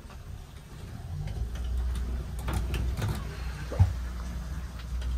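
Low rumble of a small fishing boat under way in choppy water, rising about a second in, with scattered knocks and one sharp knock near the middle.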